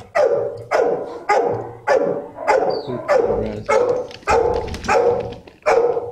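A dog barking over and over in a steady rhythm, about ten barks at roughly one every half second, each bark echoing briefly.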